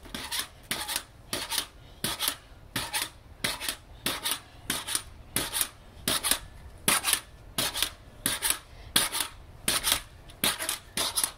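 Pogo stick bouncing on a stone patio: a steady rhythm of hops, each landing and spring stroke giving a sharp metallic click.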